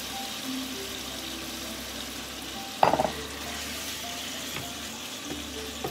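Sliced marinated beef sizzling as it is quick-fried over high heat in a frying pan and stirred with a wooden spatula. About three seconds in there is one sharp knock against the pan.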